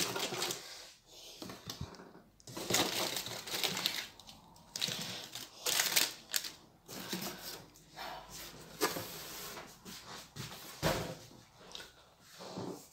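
Crinkling and rustling of packaging as wrapped tea sachets and a chocolate wafer bar are lifted out of a cardboard box and set down on a table, in irregular bursts with short pauses.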